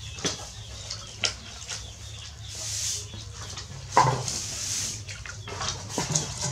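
Hands washing chopped vegetables in water in a metal pot: splashing and swishing, with a few sharp knocks against the pot, the loudest about four seconds in.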